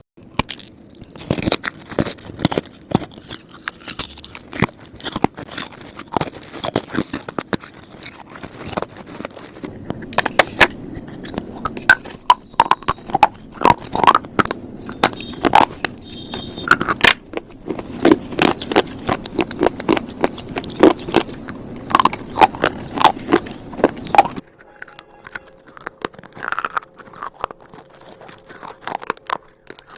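Slate crunching: rapid, irregular crisp cracks and snaps, dense for most of the stretch and sparser over the last few seconds.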